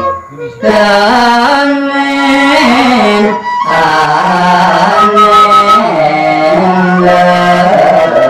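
A man singing a Madurese tembang macapat into a microphone, slow, ornamented, melismatic lines with a brief break about half a second in, accompanied by a bamboo flute (suling), with a held high note about five seconds in.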